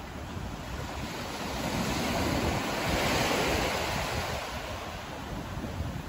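Small surf breaking and washing up the sand, swelling to its loudest about three seconds in and then easing off. Wind buffets the microphone underneath with a low rumble.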